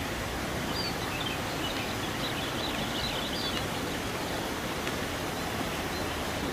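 Steady outdoor background noise, an even hiss, with faint high bird chirps during the first half.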